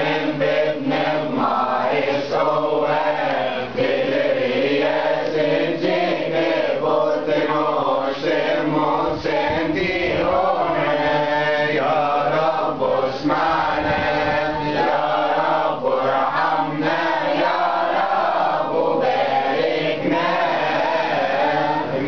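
Coptic Orthodox doxology chanted by a group of voices in unison, with the melody wavering and drawn out on long held syllables.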